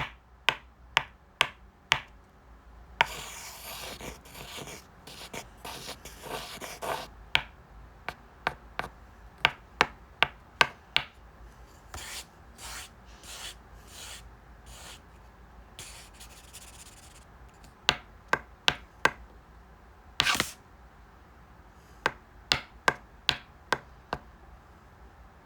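Small plastic toy figures and furniture being handled: irregular sharp taps and clicks, with a few stretches of rubbing and scraping, the longest about three seconds in.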